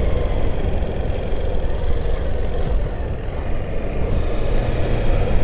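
Honda motorcycle engine running as the bike rides along at low speed, with a steady low rumble of engine and road noise and a slight dip about three seconds in.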